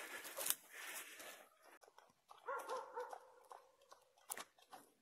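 A wild boar rooting in dry leaf litter: crunching and rustling for the first second and a half. About halfway through comes a quick run of about four short whining calls from an animal, and a single sharp snap follows near the end.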